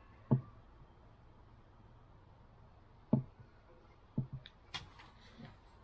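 A few separate sharp knocks and clicks with quiet between: one near the start, one about three seconds in, then a quick cluster near the end. These are hard plastic and tools being handled during a hot-staple repair of a car's plastic coolant expansion tank.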